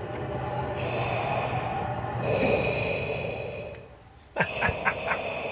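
Darth Vader's mechanical respirator breathing: slow, hissing inhale and exhale cycles of about two seconds each, with a short pause about four seconds in.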